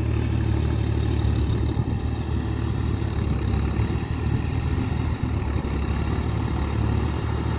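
John Deere tractor's diesel engine running steadily as it works a flooded paddy field on cage wheels.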